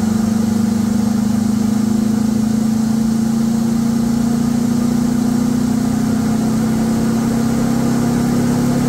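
2025 Yamaha R3's parallel-twin engine breathing through a Graves slip-on muffler, running steadily at light throttle with its pitch slowly rising as revs climb from about 2,800 to 4,000 rpm. On stock fuel mapping it is running lean at light throttle, around 15:1 air-fuel ratio, where the O2 sensors are not trimming the fuelling.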